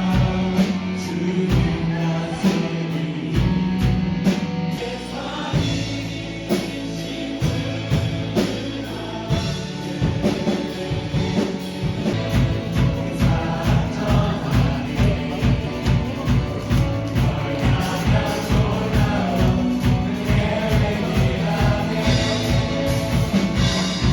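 Christian worship music: group singing over instruments, with a steady beat that grows prominent about halfway through.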